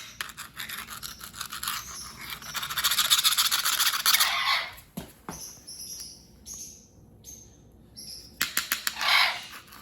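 A screwdriver scraping caked-on dirt off a surface in quick rasping strokes, with a longer continuous scrape a few seconds in and another run of quick strokes near the end. Short bird chirps come in the pause between.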